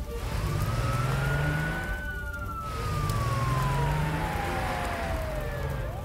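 Cartoon fire engine siren wailing: one slow rise to a high pitch, held briefly, then a long falling glide, starting to rise again at the very end, over a low rumble.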